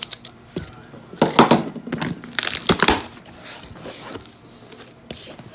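Packaging being handled and torn open while a boxed appliance is unpacked: crackling and crumpling, with two loud bouts a little over a second in and about two and a half seconds in, then quieter rustling.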